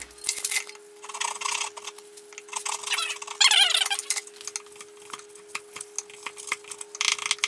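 Hand saw and chisel working a small piece of hardwood held in a bench vise: short rasping strokes, the strongest a few seconds in, then a chisel paring and scraping away wood, with small ticks and taps throughout.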